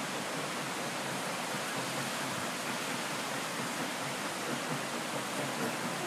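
Steady rush of flowing creek water, an even hiss with no rhythm or tones.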